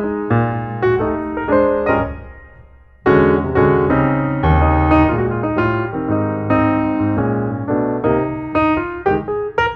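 Background piano music: a melody of struck notes that fades down about two seconds in and starts again loudly a second later.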